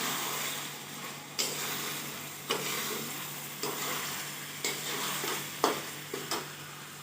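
Chicken sizzling as it fries in a pan, stirred with a utensil that knocks against the pan about once a second.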